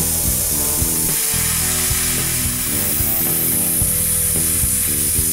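Handheld plasma cutter cutting half-inch steel flat bar: a steady, loud hiss of the cutting arc and air. Background music with a changing bass line plays under it.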